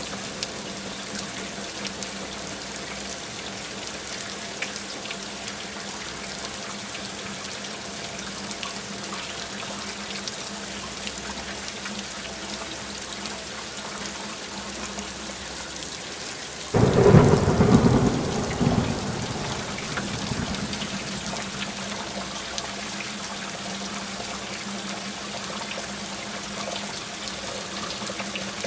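Steady rain falling. About seventeen seconds in comes a sudden loud clap of thunder that rumbles away over a few seconds.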